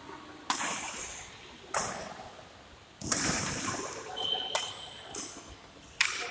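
Badminton rally: rackets striking the shuttlecock about six times, a hit every second or so, each hit ringing briefly in the hall. A short high squeak sounds a little past the middle.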